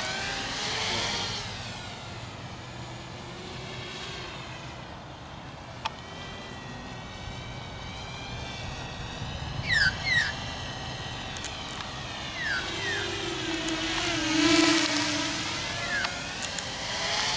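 Walkera F210 racing quadcopter's brushless motors and propellers whining, the pitch rising and falling with the throttle as it flies fast. It is loudest as it passes close about three-quarters of the way through.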